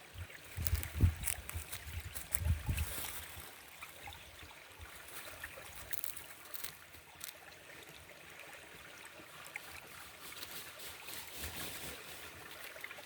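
Small forest brook babbling and trickling, with a couple of low thumps in the first three seconds.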